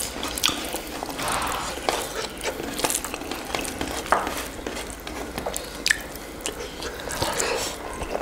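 Close-miked eating sounds: biting and chewing fried chicken wings, with scattered sharp clicks and crackles of mouth and food.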